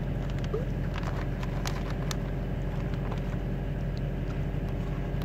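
Steady low hum of outdoor background machinery or traffic, with a few faint ticks.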